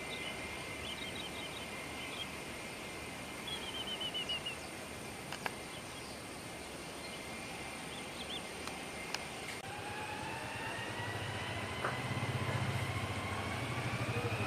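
Airbus A320 jet engines running at taxi power as the airliner rolls along the runway, a steady whine over engine noise. About two-thirds of the way through, a whine rises in pitch and a low hum grows slightly louder. A few bird chirps come briefly in the first half.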